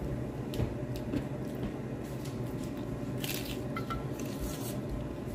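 Someone biting into and chewing a crisp tostada close to the microphone, with two bursts of crunching about three seconds in and again near the end, over a steady low hum.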